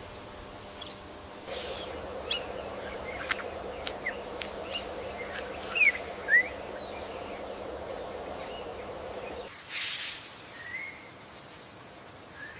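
Bird chirps and short sweeping whistles over a steady outdoor ambience, with two louder chirps around the middle and a few sharp clicks. About three-quarters of the way through, the background changes abruptly and a brief rushing sound follows.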